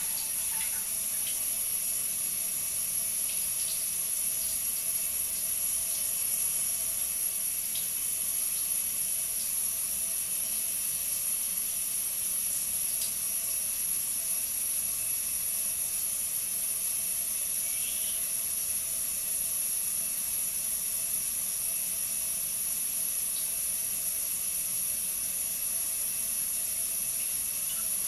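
Water running steadily from a tap, an even, unbroken hiss.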